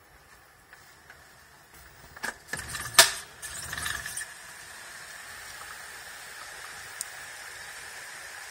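A window being opened: a few clicks and rattles, then one sharp knock about three seconds in. After that, a steady hiss of rain and rainwater running in the street comes in through the open window.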